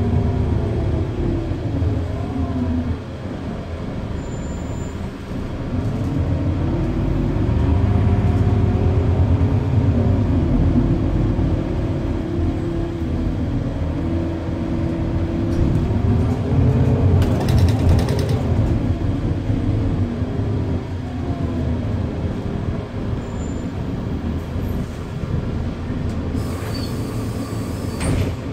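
Irisbus Citelis 12 city bus under way, heard inside the cabin: engine and drivetrain running, their pitch rising and falling several times as the bus speeds up and slows. Two brief hisses of air, one about two-thirds of the way through and one near the end.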